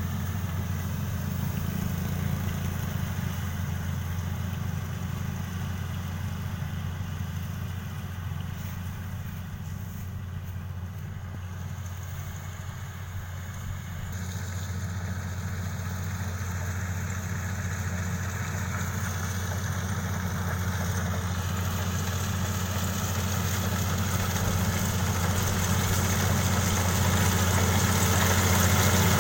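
Kubota DC-35 combine harvester's diesel engine running steadily, growing louder over the second half.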